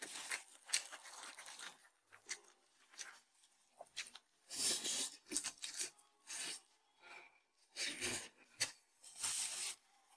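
Close-up eating sounds: chewing and slurping mouthfuls of saucy kao leng mian (grilled cold noodles), in short bursts of about a second each, with a sip through a drinking straw near the end.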